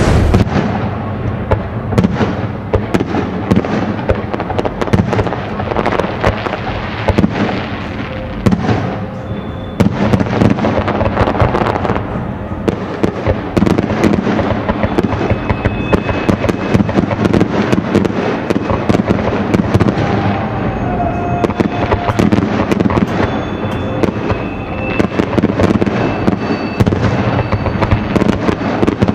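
Fireworks display: a dense, continuous run of bangs and crackles, with many bursts overlapping.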